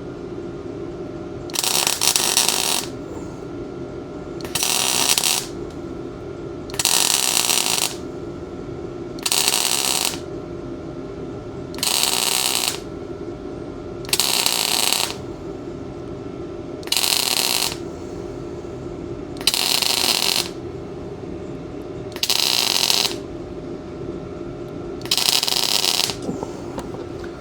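A Best Arc MIG 145 welder's arc crackles in about ten short bursts of roughly a second each, a couple of seconds apart: stitch welding thin tubing in short beads so the heat does not burn through. A steady hum runs underneath.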